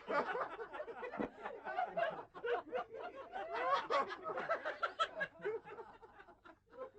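People snickering and chuckling in short, quick bursts of laughter, with some talk mixed in.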